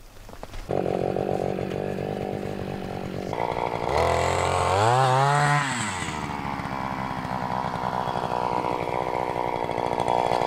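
Eskimo powered ice auger's engine running as it drills a hole through lake ice. Its pitch rises in a rev from about four seconds in and falls back near six seconds, then it runs steadily.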